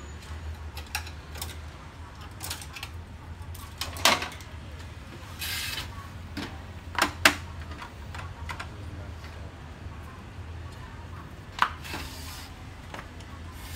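Plastic clicks and knocks from a laser printer's housing and parts being handled during disassembly: scattered sharp knocks, the loudest two close together about seven seconds in, and a brief rustle in between, over a low steady hum.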